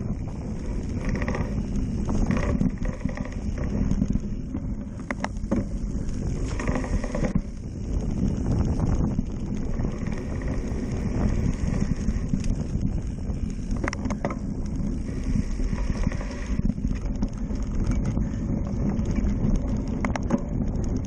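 Cyclocross bike ridden over rough dirt, leaves and patchy snow, picked up by a camera on its handlebars: a steady rumble from the tyres and frame, with a few sharp knocks and rattles from bumps.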